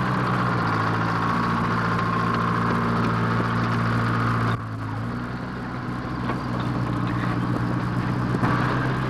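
Bulldozer engine running steadily, dropping in level about halfway through and picking up again near the end.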